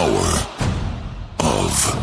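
Hardstyle track: a loud, heavily processed vocal-style sample with falling pitch sweeps, chopped into stop-start bursts as a sustained breakdown pad drops out.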